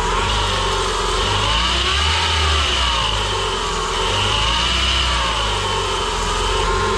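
Renault Megane R26 2.0-litre turbocharged four-cylinder engine running, its revs rising and falling gently in slow waves about every two seconds, with a high whine above.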